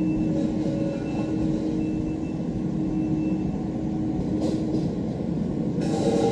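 Heavy machine working a soil conditioner across a gravel driveway, its engine running steadily as it turns over and levels the gravel. A short hiss comes partway through, and the engine note shifts higher and brighter near the end.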